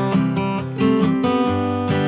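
Background music: an acoustic guitar strumming chords at a steady, moderate pace.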